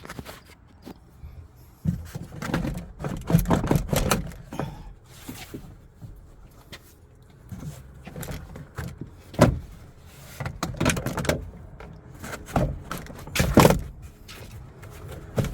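Plastic rear door trim panel being lifted off a car door and handled: irregular knocks, clicks and rattles, with a few sharper knocks among them.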